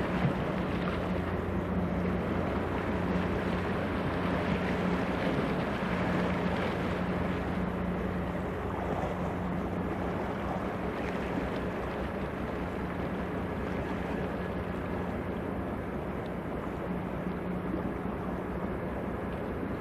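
Car ferry's diesel engines running steadily under way, a low hum over a rushing churn. It fades slightly as the ship pulls away.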